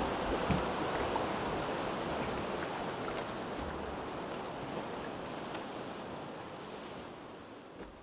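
Steady wash of sea waves and wind, fading out slowly.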